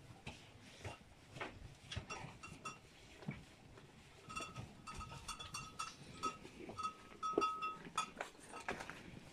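Cattle at a concrete feed trough: scattered crunches and knocks from the animals feeding. From about four to eight seconds there is a thin, high call repeated in short pieces.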